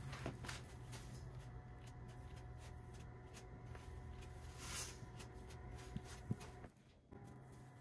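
Metal putty knife spreading and scraping joint compound over foam insulation board: faint, irregular scraping strokes over a low steady hum, with a couple of sharp clicks about six seconds in.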